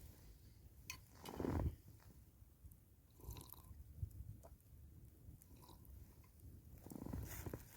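A person chewing and eating food close to the microphone, in irregular bites with a few louder moments.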